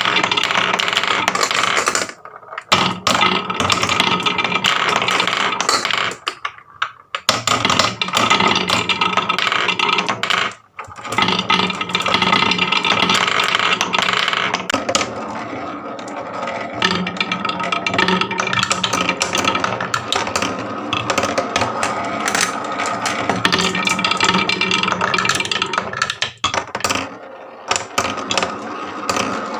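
Many marbles rolling and clattering down a wooden marble run, a dense rattle of clicks that drops out briefly a few times.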